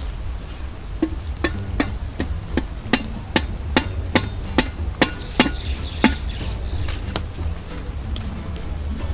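A wooden stick knocking against burning firewood, a run of sharp woody knocks about two or three a second that stops about seven seconds in.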